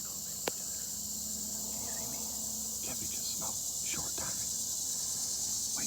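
Steady high-pitched insect chorus in the woods, with one sharp click about half a second in and faint low whispering near the middle.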